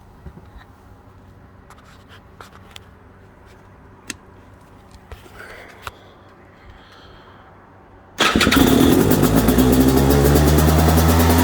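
KTM 250 EXC enduro motorcycle engine cold-starting: heavy breathing and a few clicks, then about eight seconds in the engine catches suddenly and runs loudly and steadily.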